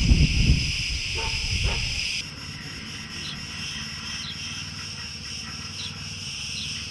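Steady, shrill chorus of insects, with wind rumbling on the microphone for the first two seconds. After an abrupt change about two seconds in, the chorus carries on with a fast, even pulsing in its highest part.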